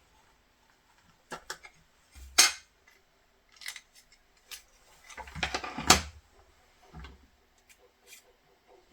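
Small metal nail-drill bits clinking and knocking together as they are handled and one is picked out. The knocks come separately, loudest about two and a half seconds in and in a cluster around six seconds.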